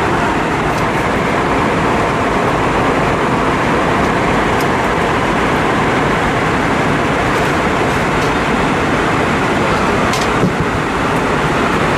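Steady roar of airflow and engines inside an Airbus A320-232's cabin in flight, with a faint knock about ten seconds in.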